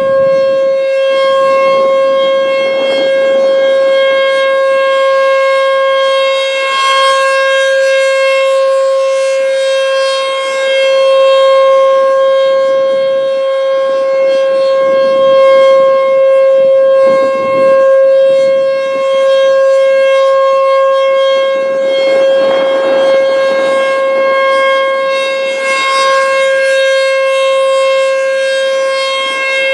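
American Signal T-128 outdoor warning siren sounding a steady single-pitch alert tone at full volume during its test. The loudness swells and fades every few seconds as the rotating siren sweeps past.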